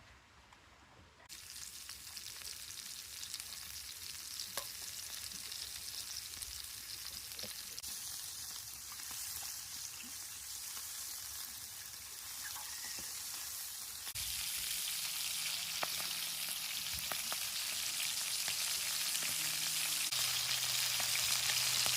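Breakfast sausages and pancakes frying in a pan, a sizzle that starts suddenly about a second in and grows louder, stepping up again about halfway through.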